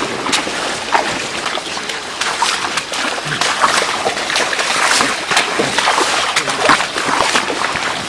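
Elephants' feet splashing and sloshing through shallow water as they walk, a run of uneven splashes with each step.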